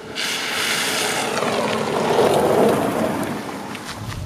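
A Volkswagen T6 van driving past: a rush of tyre and engine noise that starts suddenly, swells to its loudest about two seconds in, and falls away.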